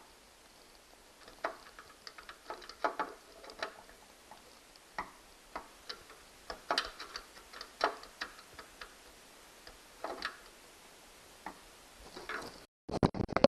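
Irregular sharp clicks and small scraping ticks of a screwdriver working a stubborn, deep-set screw out of a treadmill's motor cover.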